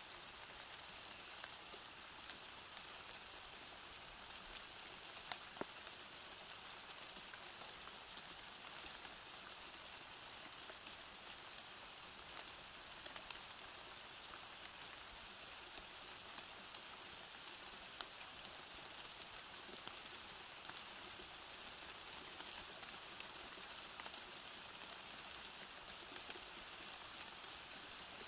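Steady rainfall: an even hiss, with scattered sharp ticks of single drops striking.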